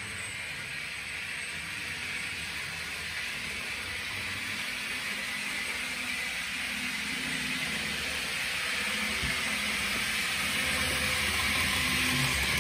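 N gauge model train running along the track: a steady whirr of its small electric motor and wheels on the rails, slowly growing louder toward the end.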